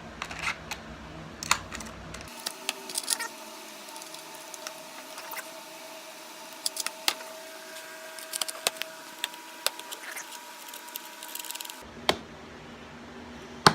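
Scattered light clicks and knocks of a board and a wooden table-saw jig being handled and positioned, over a faint steady background hum; the saw is not running.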